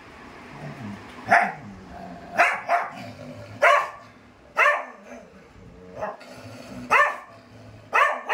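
Black-and-white dog barking: a string of about seven loud, sharp barks, roughly one a second.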